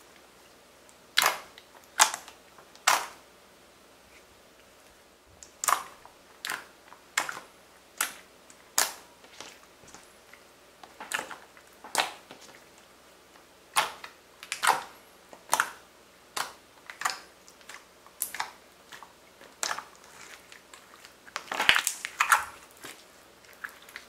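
Clear light-blue slime being pressed, folded and stretched by hand, giving a series of sharp, wet clicks and pops, roughly one a second, with a quicker run of pops near the end.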